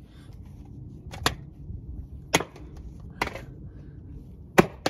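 Sharp, hard knocks of a hand tool striking a plastic toy on concrete, about five blows at uneven intervals, the last two close together near the end.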